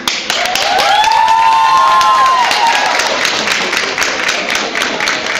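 A crowd of schoolchildren in a gym clapping and cheering. Several long, high whooping shouts rise and hold over the applause from about half a second in, then fall away after about two seconds.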